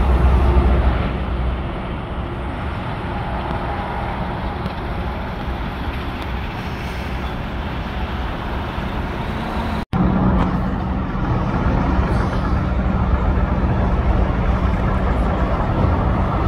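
Motorway traffic: the steady rumble of lorries and cars passing, heaviest in the first second or two. The sound cuts out for an instant a little before ten seconds in, and a steady low engine hum runs under the traffic after that.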